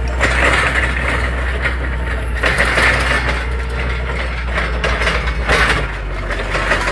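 Diesel forklift engine running steadily as the forklift drives, heard from inside its open cab: a constant low hum under uneven rattling noise.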